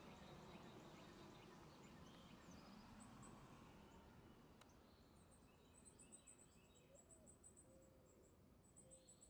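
Near silence: faint outdoor ambience with a few scattered small chirps. From about halfway, a high, rapid chirping repeats in short groups.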